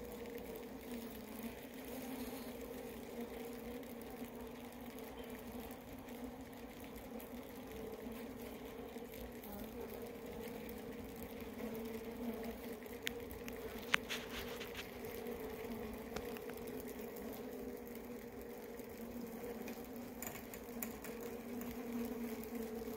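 Honeybee colony humming steadily, a low buzz with a second, higher band an octave above, with a few sharp clicks a little past halfway.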